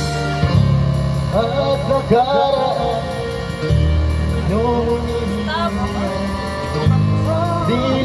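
Videoke singing: a voice sings into a microphone over a karaoke backing track with a steady bass line.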